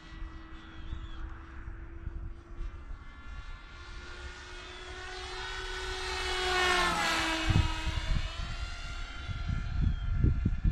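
Electric motor and propeller of a Mini Skyhunter R/C plane buzzing as it makes a low pass. The buzz grows louder to a peak about seven seconds in, then drops in pitch as the plane goes by. Low rumbling thumps, like wind on the microphone, come after the pass and near the end.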